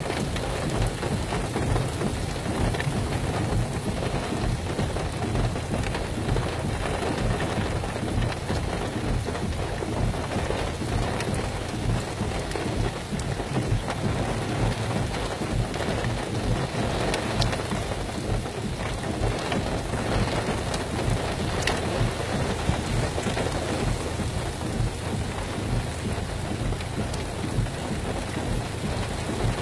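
Wind buffeting the microphone: a steady, rumbling rush of noise with no distinct events.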